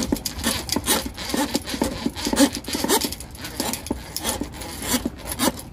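Steel drain-snake cable scraping and rasping in irregular strokes as it is pulled back by hand out of a sewer clean-out pipe after clearing the clog.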